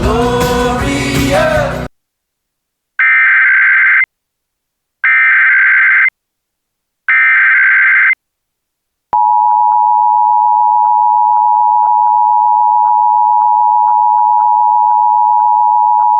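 Music cuts off about two seconds in. After a pause come three one-second bursts of Emergency Alert System SAME header data. About nine seconds in, the EAS two-tone attention signal starts and holds steady.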